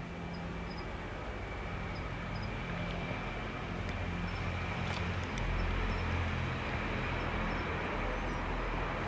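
Wind rumbling on the microphone, growing stronger about halfway through. Over it come faint high chirps repeating every second or so and a brief high, wavering bird call about eight seconds in.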